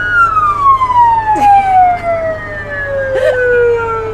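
Electronic vehicle siren from a CJB-150A siren controller winding down in one long falling tone, several pitches sounding together, sliding from high to low over about four seconds.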